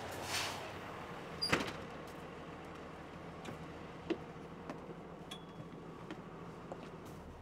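City bus doors opening with a short hiss of air and a sharp clunk, then scattered small knocks and clicks and a brief high beep as a rider steps aboard, over the bus's steady engine hum.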